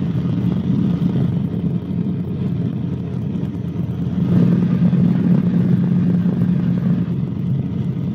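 Cabri G2 helicopter in cruise: the steady low drone of its piston engine and rotors in the cabin, swelling slightly about four seconds in.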